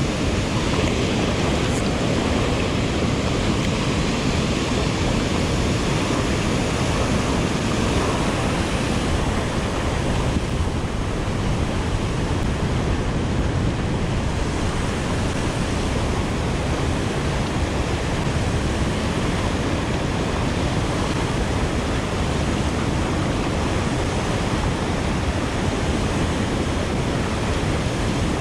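Steady roar of rushing water, loud and unbroken.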